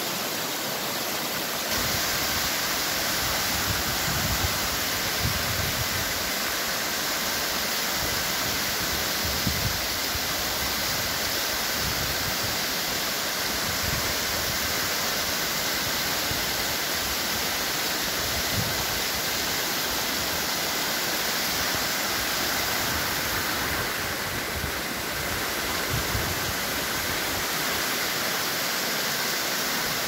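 Waterfall: water pouring and cascading over rock in a steady, even rush, with occasional low bumps on the microphone.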